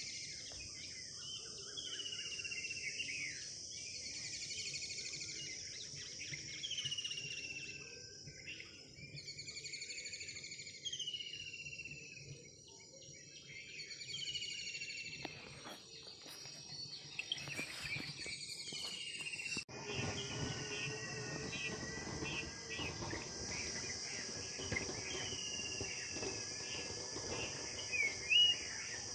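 Steady chorus of crickets or other insects with a bird repeating a short chirping call every second or two. The background changes abruptly about two-thirds of the way through, as if the recording is spliced.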